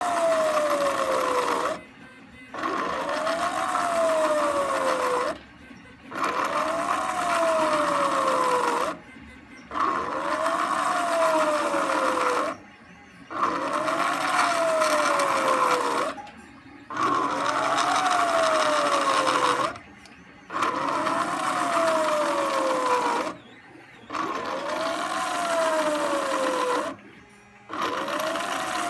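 NEMA 17 stepper motor turning an M8 load shaft at 400 rpm through printed gears, in repeated moves of about three seconds with short pauses between, about eight in all. In each move the motor's whine rises in pitch as it speeds up, then falls as it slows to a stop.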